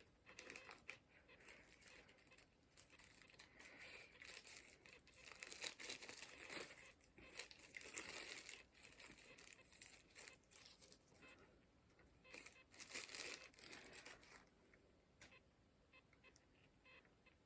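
Plastic packaging crinkling and rustling in irregular bursts as sunglasses are unwrapped by hand, dying down near the end to a few faint clicks.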